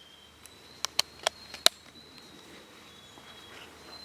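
Four sharp clicks in quick succession about a second in, over a faint, steady, high-pitched insect chirr.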